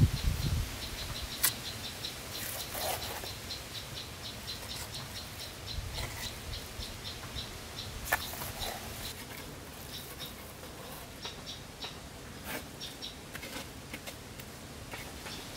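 An insect, cricket-like, chirping in a steady run of short high pulses, about four or five a second, fading out after about ten seconds. A few sharp clicks or knocks come in over it.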